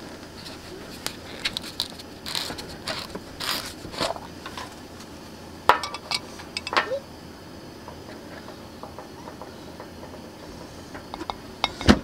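A plastic screw lid is twisted off a glass jar of Hallabong citrus tea preserve with crackly scraping turns. A spoon then clinks sharply on glass a couple of times, and knocks loudly once near the end while the sticky citrus preserve is scooped into a glass mug.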